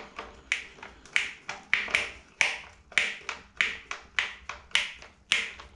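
Sharp clicks repeating evenly, about one and a half to two a second, with fainter ticks between: a screwdriver turning the adjusting screw on an exhaust fan housing's mounting clip.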